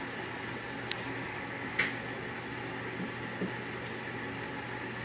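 Steady hum and hiss of a fan, with two short sharp clicks about one and two seconds in.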